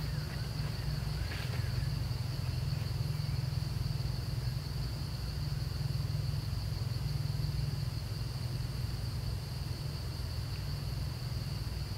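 Outdoor ambience: a steady high-pitched insect drone over a constant low rumble, with one faint brief chirp about a second and a half in.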